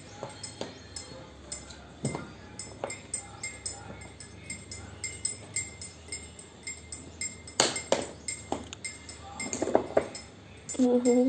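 Latches of a hard-shell plastic carrying case being worked open by hand: scattered sharp plastic clicks and knocks, the loudest about eight seconds in, then the lid being lifted. A brief voice right at the end.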